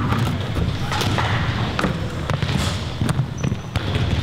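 Balls bouncing and thudding on a hardwood gym floor at irregular intervals, about one or two hits a second, echoing in a large gym hall, over steady background noise.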